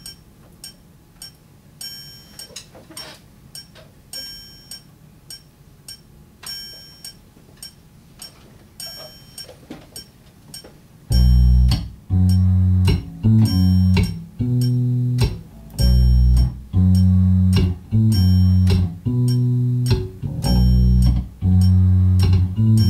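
Light, evenly spaced clicks, then about halfway through an electric bass guitar comes in loudly, playing a repeating line of short, low notes.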